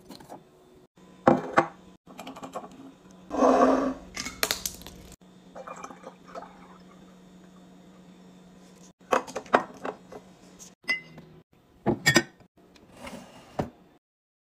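Glass bottles and pump dispensers clinking and knocking as they are handled and set down, in a run of sharp clicks, with liquid poured through a funnel into a glass syrup bottle. The sounds cut off just before the end.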